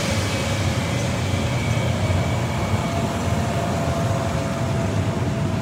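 SNCB AM80 'Break' electric multiple unit pulling out and accelerating away: a steady low rumble of wheels and running gear, with a whine that rises a little in pitch about halfway through.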